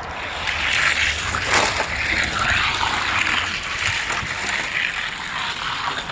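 Die-cast Hot Wheels cars racing down plastic track: a loud, steady rushing roll with uneven surges.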